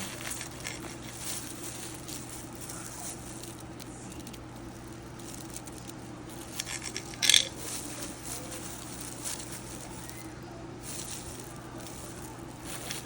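Knife cutting tomatoes on a cutting board: a run of short light taps, with a louder clack a little past halfway, over a low steady hum.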